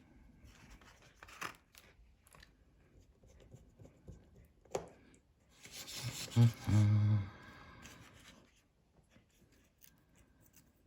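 Small clicks and scrapes of fine-tipped tweezers working on an opened iPhone 5S while the new battery's cable is fitted. About six seconds in there is a louder rustling stretch with a low hum.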